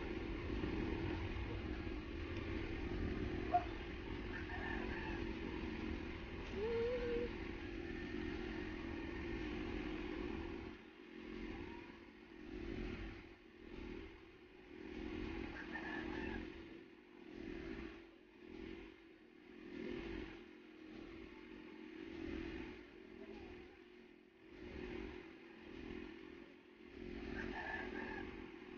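A motor vehicle engine running, steady at first, then swelling and fading every second or two from about a third of the way in.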